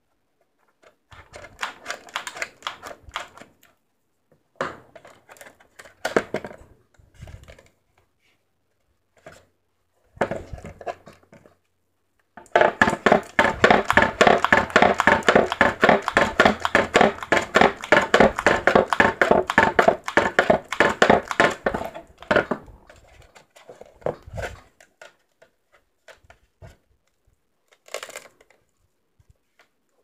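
Homemade cup bell swinging, its clapper clicking against the inside of the disposable cup in quick light taps. The taps come in several bursts, the longest and loudest from about twelve to twenty-two seconds in.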